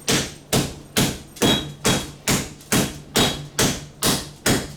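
Rolling pin pounding a pork loin under plastic wrap: steady, evenly spaced smacks, about two a second.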